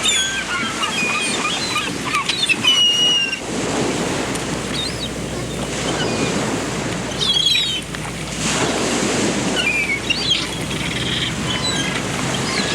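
Surf washing in and swelling every few seconds, with small birds calling over it in short chirps and whistles scattered throughout.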